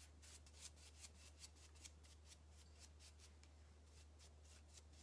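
Faint, quick strokes of a paintbrush applying white chalk paint over a painted terra cotta pot, the bristles scratching across the surface several times a second.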